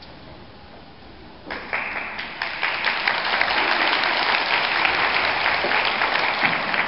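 Audience applause from a large crowd. It starts suddenly about a second and a half in and carries on as dense, steady clapping.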